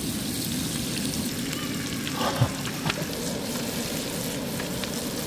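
Sliced mushrooms and onions sizzling in bubbling butter in a frying pan: a steady crackling hiss, with a couple of small clicks around the middle.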